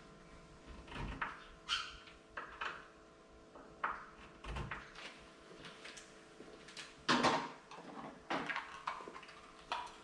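Irregular small clicks, knocks and rattles of hands working a smart deadbolt lock and the door's fittings, with a louder rattle lasting about half a second around seven seconds in.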